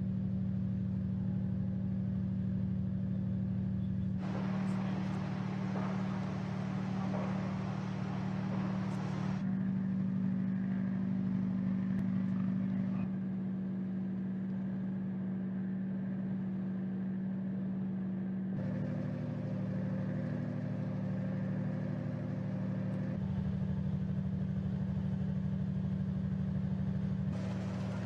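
Moored minesweeper's engines running with a steady low hum. The surrounding noise and the exact tone of the hum change abruptly several times where the recording is spliced.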